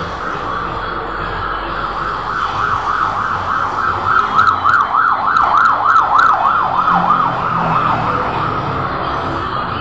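A siren in a fast up-and-down yelp, about three swings a second. It swells louder in the middle and fades away toward the end.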